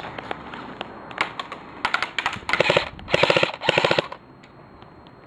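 Airsoft electric rifle firing several short full-auto bursts, rapid evenly spaced shots starting about two seconds in and stopping about four seconds in, with a few single clicks before them.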